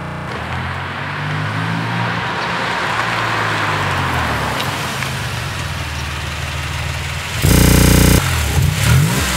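Porsche 911 (997) flat-six through a Borla aftermarket exhaust, driving past slowly at low, steady engine speed while tyre noise swells and fades. About seven and a half seconds in comes a sudden, very loud burst lasting under a second, followed by a few quick revs heard close to the exhaust.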